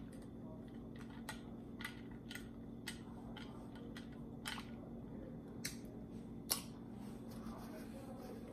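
A glass of juice being stirred, the stirrer clinking lightly against the glass in a series of short taps. The taps come about two a second at first, then more sparsely, and the sharpest is about six and a half seconds in. A low steady hum runs underneath.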